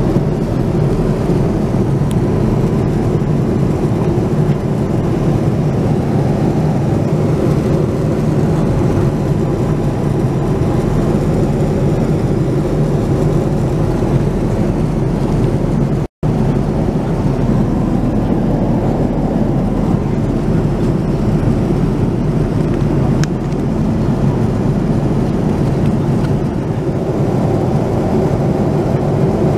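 Steady cabin noise inside a Boeing 787-9 airliner: an even, low rush of air and machinery, broken by a split-second dropout about sixteen seconds in.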